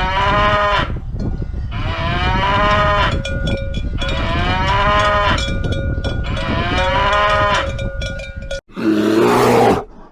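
A cow mooing four times, each moo a long call rising then falling in pitch, about two seconds apart, with a cowbell clanking and ringing between the later moos. Near the end, a short, loud, rasping call from a different animal.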